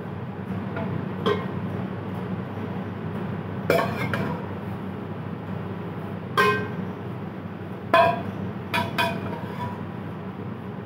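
Metal ladle clinking and scraping against metal pans as meat stock is ladled over rice for biryani: about six sharp, ringing clinks over a steady low hum.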